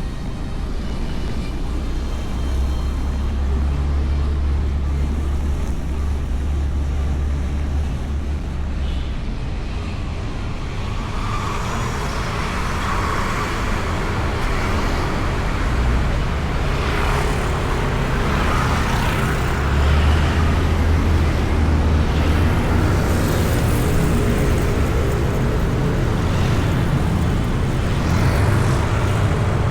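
Motorcycle riding in traffic, heard from a microphone inside the rider's helmet: a steady low rumble of wind and engine. From about ten seconds in, a broader road and traffic noise grows louder over it.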